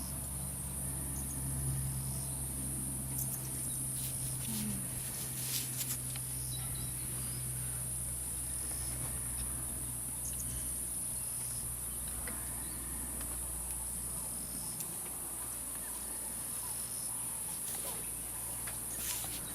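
Steady high-pitched insect chorus over a low steady hum, with a few faint clicks.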